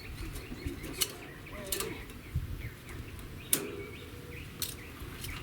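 Birds chirping faintly in the background, with four sharp clicks of something being handled.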